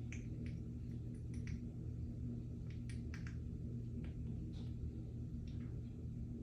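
Steady low hum with faint short clicks and brief high squeaks scattered through it, soft sounds from a Congo African grey parrot.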